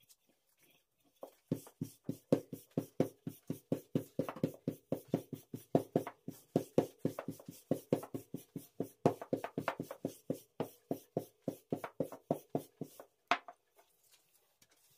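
A rolling pin rolling a sheet of baklava dough thin on a wooden table: a quick, even run of soft knocks, about four or five a second, that stops with one sharper knock near the end.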